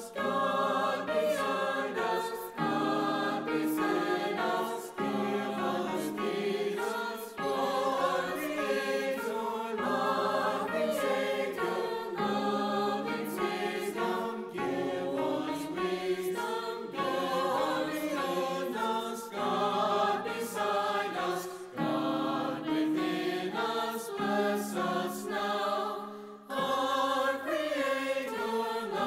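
A group of voices singing a slow hymn verse over held low chords that change every couple of seconds.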